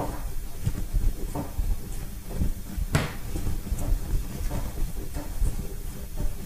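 Firm pastry dough being kneaded by hand on a wooden chopping board: a run of irregular dull thumps and knocks as the dough is pushed and pressed into the board, with one sharper knock about three seconds in.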